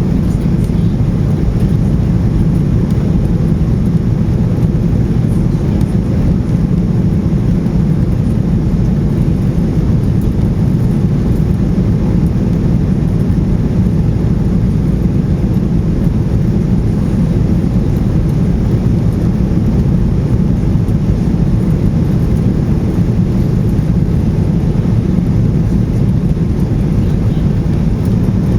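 Steady low rumble of engine and airflow noise inside the cabin of a Boeing 737-800 with CFM56-7B engines, unchanging throughout.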